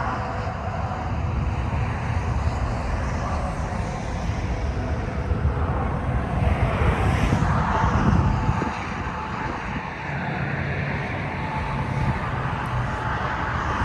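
Steady low outdoor rumble of engine or traffic noise, swelling a little in the middle.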